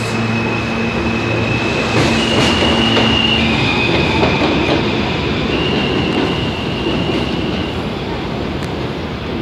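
R160A-1 subway train pulling out of the station: rail noise and wheel rumble under a high electric propulsion whine that steps between pitches as it accelerates, easing off near the end as the train moves away.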